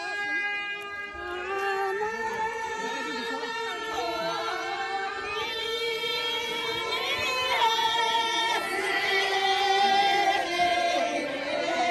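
A group of women singing together in unison, a slow melodic song, growing a little louder after about eight seconds.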